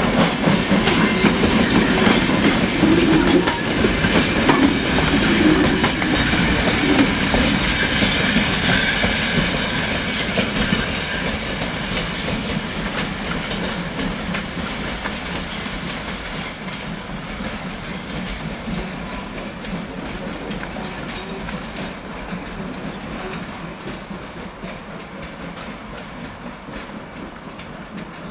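Coaches and wagons of a steam-hauled train rolling past, wheels clattering over the rail joints, the sound fading steadily as the train draws away.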